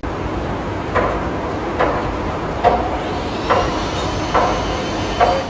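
Loud steady background noise that cuts in suddenly, with a regular knock a little more than once a second, like train clatter or hammering. This is the noisy surroundings that drown out the call.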